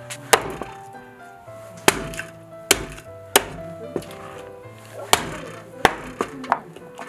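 Cleaver chopping through bone-in pork with skin on a wooden chopping block: about eight sharp, irregularly spaced strikes. Background music plays under it.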